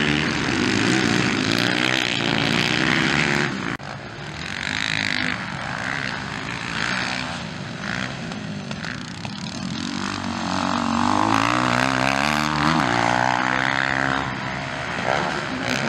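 Motocross dirt bike engines racing, revving up and down through corners and accelerations so the pitch keeps rising and falling. The sound drops off sharply about four seconds in, then builds again toward the end.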